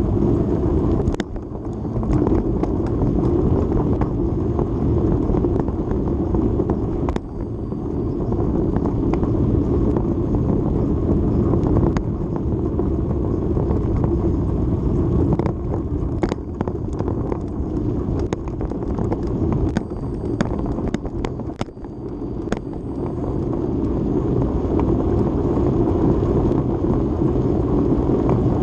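Steady low rush of wind on a bicycle-mounted action camera's microphone while riding, mixed with tyre rumble on pavement, with a few brief dips and occasional sharp clicks and knocks.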